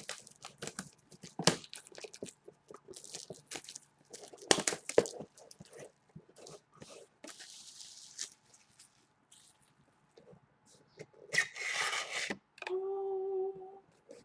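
Trading-card boxes and their plastic wrap being handled and opened: quick crinkles, taps and scrapes, then a longer ripping noise about eleven seconds in. A short, steady pitched whine follows the rip.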